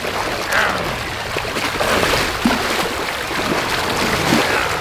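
Shallow water splashing and churning as a large nurse shark thrashes while held by its tail.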